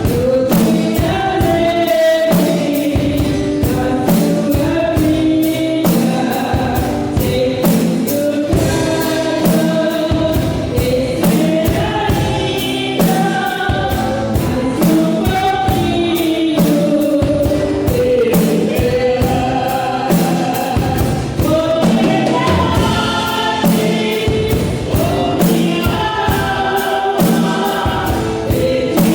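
Gospel song with a choir singing over a band and a steady drum beat, the snare drum sitting low in the mix.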